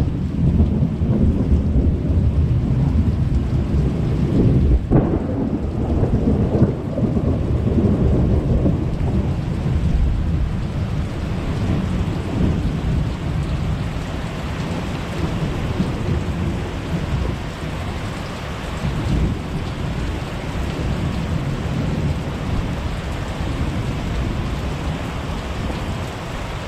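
Thunder rumbling almost without a break over falling rain, with one sudden sharp sound about five seconds in. The rumble slowly eases over the second half.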